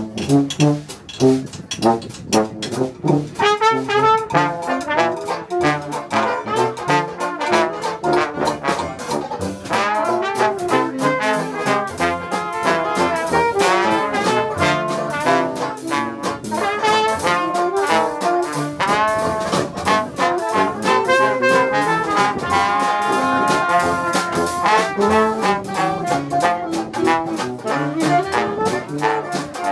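Live Dixieland jazz band playing: trombone, trumpets, saxophone and tuba over a drum kit.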